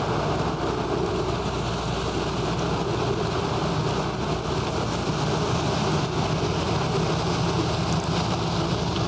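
Steady rushing noise of wind buffeting the microphone outdoors, even throughout with no breaks.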